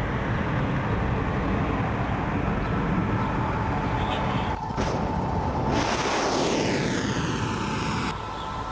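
Military aircraft noise: a steady rumbling engine sound, with a jet passing by a little over halfway through, its whoosh sweeping down in pitch. Short breaks in the sound mark cuts between clips.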